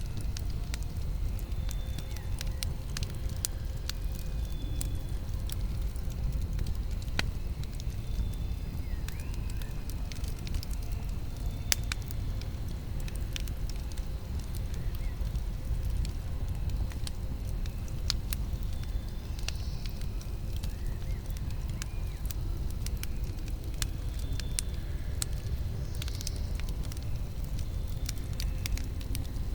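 Campfire burning with a steady low rumble and sharp crackles and pops scattered irregularly throughout.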